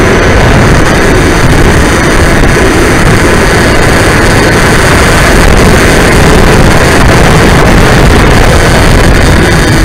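Bixler 3 foam RC plane in flight, heard through its onboard camera's microphone: the electric motor and propeller run steadily under a loud, constant rush of wind and noise.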